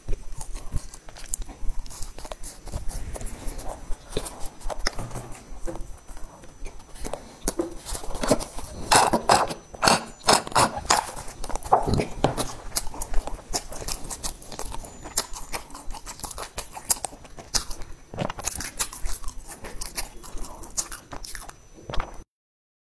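Close-miked chewing of a soft, crumbly yellow cake: mouth sounds with many small clicks and crackles, busiest around the middle. It cuts off suddenly near the end.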